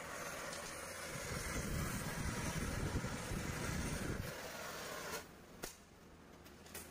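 Oxy-acetylene cutting torch hissing at a truck wheel hub while cutting out a broken axle shaft, with a heavier rumbling roar for a few seconds in the middle. The hiss drops away about five seconds in, followed by two sharp clicks.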